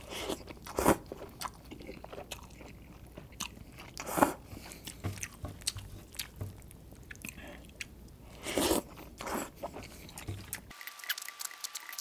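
Close-miked eating of sauced instant fried noodles: the noodles slurped up from the fingers in short bursts, about a second in, around four seconds and near nine seconds, with wet chewing and small mouth clicks between.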